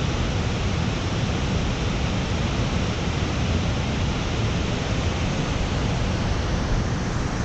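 Water rushing over a spillway: a steady, even roar with no breaks.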